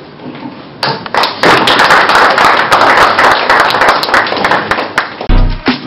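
A room of people clapping, starting about a second in and lasting about four seconds. Near the end it is cut off by an electronic music sting with heavy bass.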